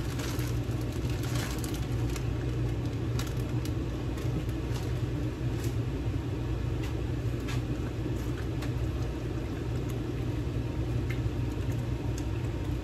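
A steady low machine hum, like a fan or motor running, with scattered light clicks and taps of cookware as tortellini goes into a metal stockpot and a spoon stirs it.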